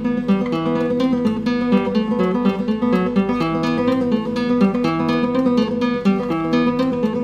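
Altamira Basico classical guitar, a nylon-string guitar with a solid cedar top, mahogany back and satin finish, played fingerstyle. It sounds a continuous run of plucked notes over a steady bass, in a Spanish style.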